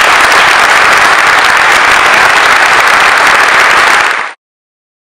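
Audience applauding loudly; the clapping cuts off abruptly about four seconds in.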